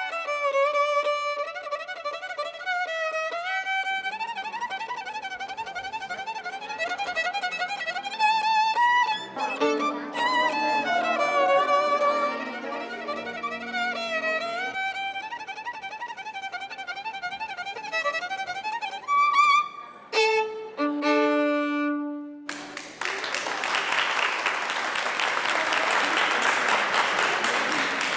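Solo violin playing a melody, ending with a few last separate notes about twenty-one seconds in. Audience applause follows for the last several seconds.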